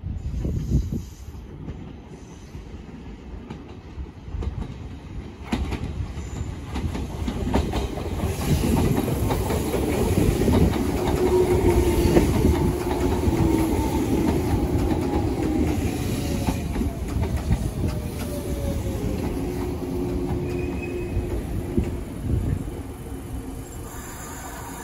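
Izu Kyuko 2100 series 'Resort 21' electric train pulling into a station: the rumble and clatter of its wheels on the rails grows as it nears, is loudest as the cars pass close by, then eases as it slows to a stop, with a whine that falls in pitch while it brakes.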